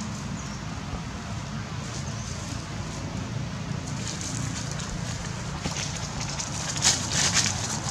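Dry leaves crackling and rustling as two young macaques wrestle and roll on the leaf-strewn ground, with a louder burst of crackling near the end, over a steady rumble of wind on the microphone.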